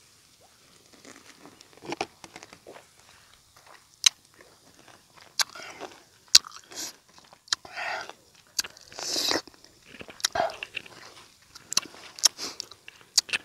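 Close-up biting and wet chewing of a peeled lemon coated with red chilli and salt, with many sharp mouth clicks and a couple of longer hissing sounds midway.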